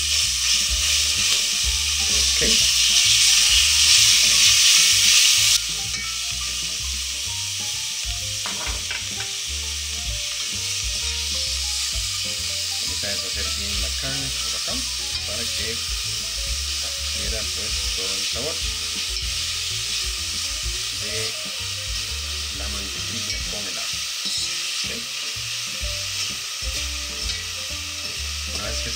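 Raw ground beef sizzling as it fries in melted butter and garlic in a stainless steel pot, while a fork breaks it up and stirs it, clicking against the pot. The sizzle is loudest for about the first five seconds, then drops suddenly to a steadier, quieter frying as the meat browns.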